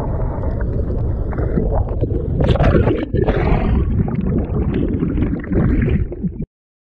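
Breaking-wave whitewater rushing and gurgling around a GoPro camera that is tumbling in the surf and dipping underwater, a dense low rumble with splashy surges. It cuts off abruptly near the end.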